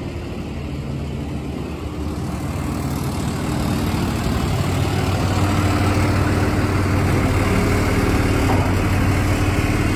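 Vacuum truck's engine running steadily while it drives the hydraulic pump that lifts the dump tank on its telescopic cylinder. The low hum grows louder from about two seconds in, then holds steady.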